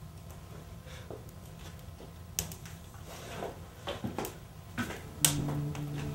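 Low steady room hum with a few scattered sharp clicks and knocks. About five seconds in, background music with long held notes begins.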